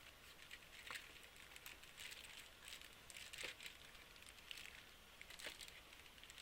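Faint rustling and crinkling of plastic parts bags and kit packaging being handled, with a few light clicks.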